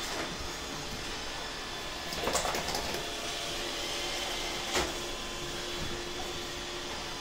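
Steady whirring background noise, with brief scuffling from a Great Pyrenees and a Saint Weiler play-wrestling on a blanket about two seconds in, and a single sharp knock just before five seconds.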